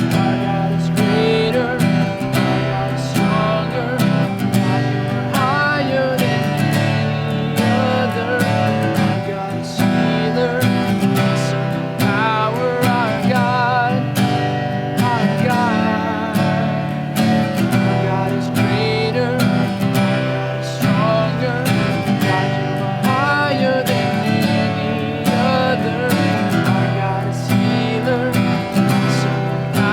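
Worship music: an acoustic guitar strummed in a steady rhythm, with a voice singing phrases of held, wavering notes over it.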